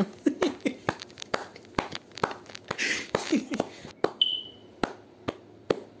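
A person making a quick run of sharp clap-like pops with the mouth or hands, about two or three a second, mixed with short squeaky chirps and a brief high whistle-like tone about four seconds in.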